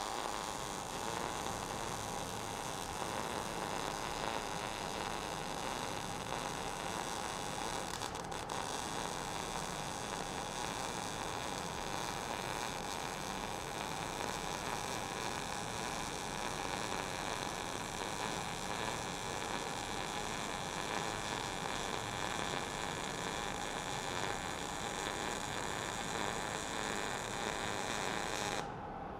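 MIG welding arc on steel plate, one continuous run of the wire-fed arc that cuts off shortly before the end.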